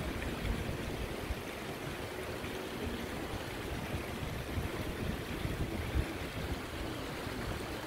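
Shallow river water running over stone blocks, a steady rushing, with wind rumbling on the microphone.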